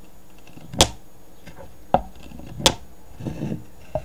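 Magnets and metal pieces clacking together. There are three sharp clacks about a second apart, then softer knocks near the end.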